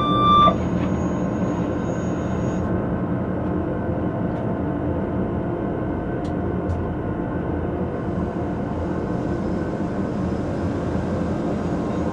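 Rhaetian Railway ABe 4/4 electric railcar running steadily along the track, heard from the driver's cab: a constant mix of traction-motor hum and wheel-on-rail noise. A short high beep sounds right at the start.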